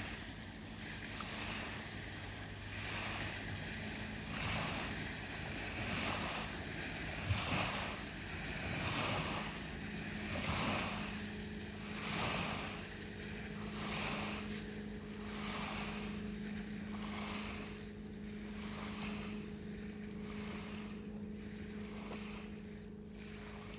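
Small lake waves washing onto a rocky shore, a soft wash about every second and a half, over the steady hum of a distant motorboat engine.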